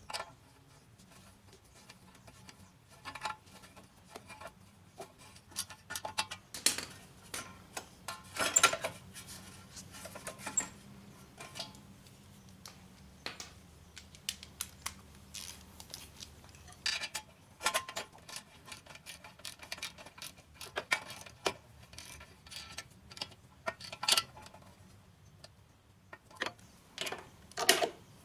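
Hand tools working on metal: irregular clicks, clinks and taps of a wrench and bolts as the muffler is bolted onto the lawn mower engine's head.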